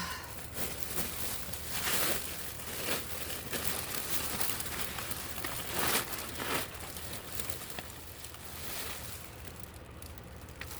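Plastic bag and paper crinkling and rustling in irregular spells as soaked sewing patterns and magazines are handled and sorted.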